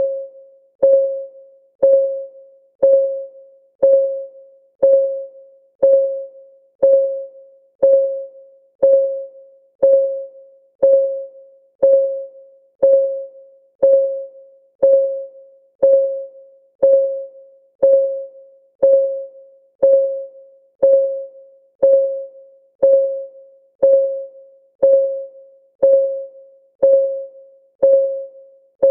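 Countdown timer's clock-ticking sound, one tick per second, steady and even. Each tick is a short pitched tock that rings briefly and fades.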